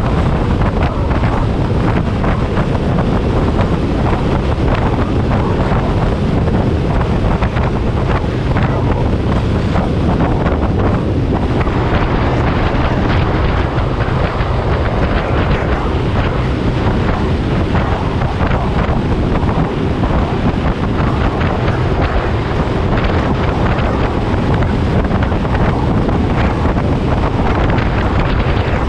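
Steady wind noise buffeting an action camera's microphone on a motorcycle riding at highway speed, a loud, even rumble with no breaks.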